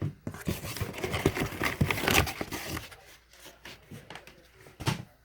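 Packaging crinkling and rustling as a boxed subwoofer is unpacked, busiest in the first two and a half seconds, then quieter handling with a sharp knock near the end.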